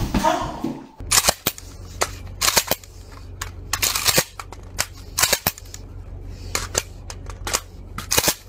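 Gunshots: a string of sharp cracks, singly and in quick pairs, about fifteen over several seconds, with a steady low rumble underneath.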